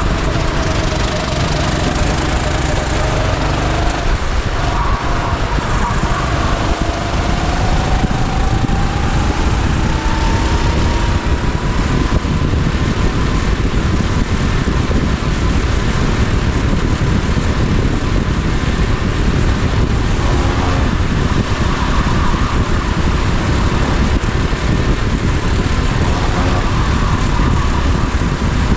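Go-kart engine running on track, picked up by an onboard camera under heavy wind and road noise. The engine note dips about four seconds in, then climbs steadily as the kart accelerates until about twelve seconds in, and holds high after that.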